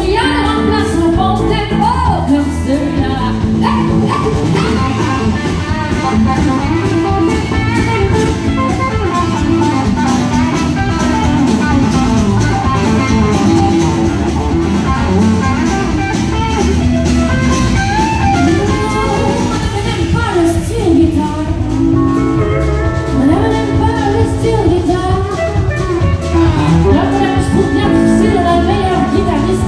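Live country band playing through a PA: electric guitar, bass, drums and pedal steel guitar, with a woman singing.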